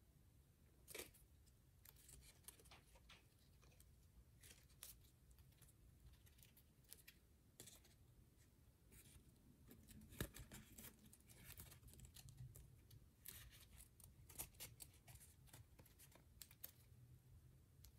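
Origami paper being folded and creased by hand: faint, irregular crinkles and clicks as the fingers pinch and press the folds, with a slightly louder crackle about ten seconds in.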